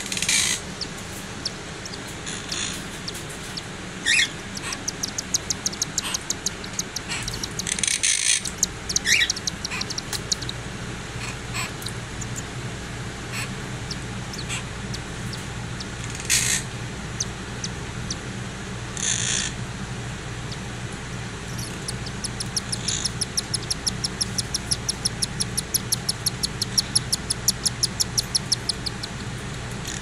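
Cockatiel chicks begging while being fed by their mother: long trains of rapid, rhythmic high chirps, about five or six a second, with a few short, louder squeals between them. A steady low hum runs underneath.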